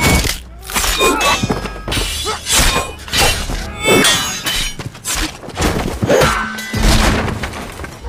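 Sword fight: steel blades clashing and ringing in a rapid series of strikes, mixed with dull thuds of blows.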